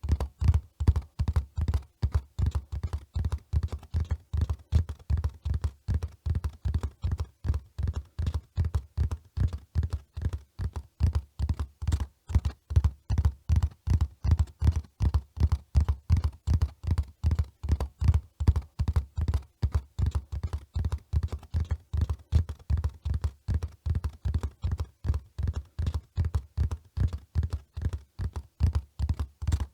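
Horse's hooves at a run: a fast, even rhythm of dull, deep hoofbeats, about four a second, keeping the same pace and level throughout.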